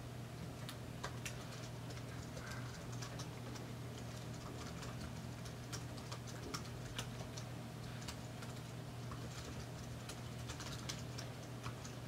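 Faint, irregular keystrokes on a computer keyboard, clicking on and off throughout, over a steady low hum.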